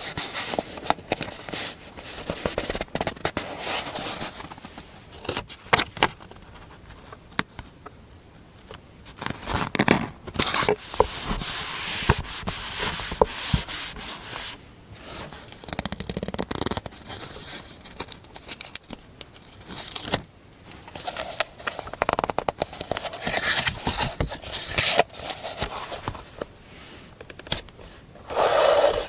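Close-up paper handling in a journaling session: irregular rustling, rubbing and scraping of paper, with small taps and clicks coming in uneven bursts.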